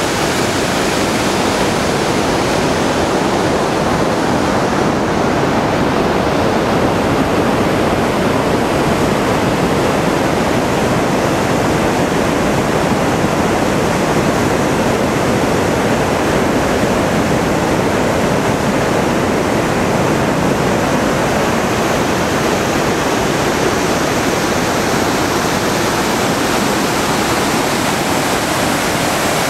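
Mountain torrent rushing down a stepped rock cascade, a steady loud rush of white water with no letup.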